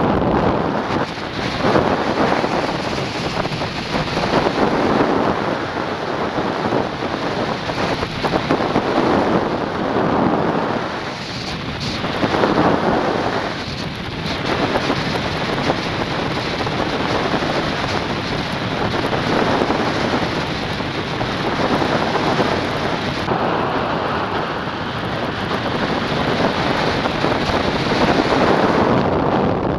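Wind noise on the microphone of a Garmin VIRB action camera mounted on a hang glider in flight: a loud, rough rush of air that swells and dips in gusts.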